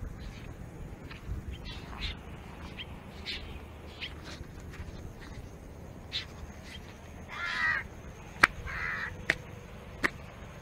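A bird gives two harsh, raspy caw-like calls in quick succession a little past the middle. A few sharp clicks fall around and after the calls, the first of them the loudest sound, over a low steady background rumble.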